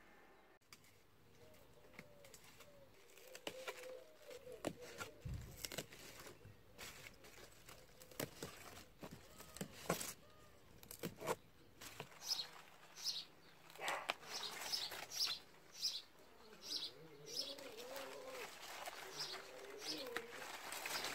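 A pigeon cooing in low, wavering phrases early on and again near the end. A small bird chirps about twice a second in the middle. Crisp snaps and rustles come from lettuce leaves being picked by hand.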